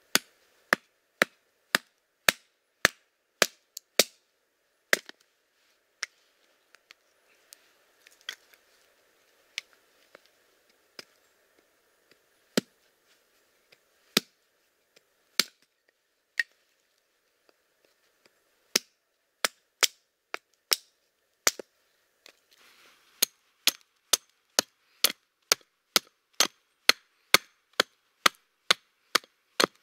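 Hatchet splitting wood into kindling on a chopping log: a run of sharp chops about two a second, thinning to occasional lighter taps midway, then quickening again to about two a second for the last ten seconds or so.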